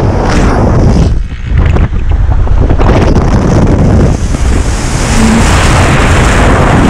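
Wind buffeting the microphone in the open back of a moving pickup truck, over the truck's engine and tyre noise on the road; it eases briefly about a second in.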